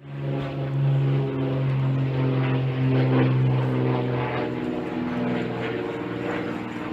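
An engine running steadily, its lowest tone fading somewhat about four seconds in.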